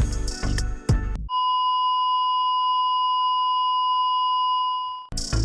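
Background music stops about a second in and a steady electronic beep, a single pure tone, holds unbroken for nearly four seconds. It cuts out and the music returns near the end.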